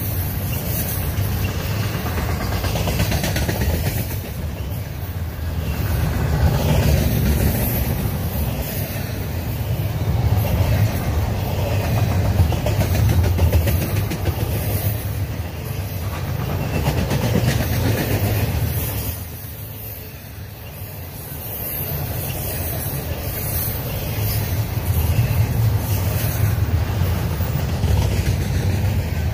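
Double-stack intermodal freight cars rolling past close by: a steady low rumble of steel wheels on rail that swells and eases, dipping briefly about two-thirds of the way through.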